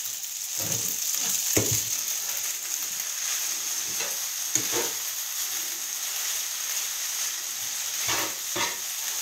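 Fusilli pasta sizzling in a frying pan while a spatula stirs it hard, the spatula scraping and knocking against the pan several times.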